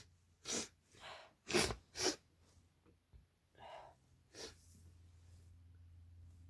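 A woman with a head cold sneezing hard several times in quick succession, three sharp sneezes within the first two seconds or so, then softer breaths and a last smaller burst a little past four seconds.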